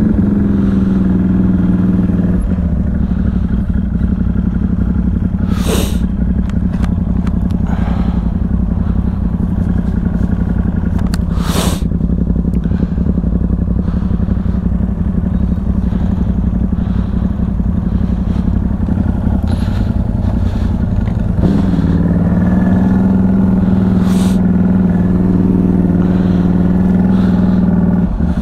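ATV engine running as the quad drives through snow, its note dropping in the first couple of seconds and rising again about three-quarters of the way through as it picks up speed. A few short, sharp clatters sound over the engine.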